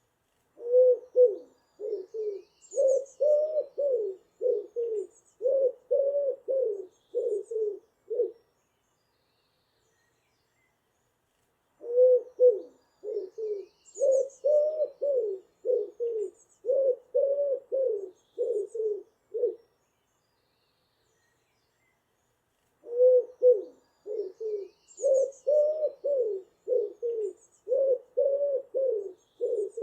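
Pigeon cooing: three bouts of low, repeated coos, each about eight seconds long with a pause of about three seconds between. Faint high chirps of other birds in the dawn chorus sound above it.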